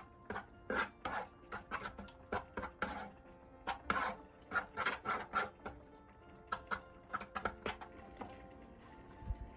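Light, irregular taps and clicks of kitchen utensils on dishes, two or three a second, over soft background music.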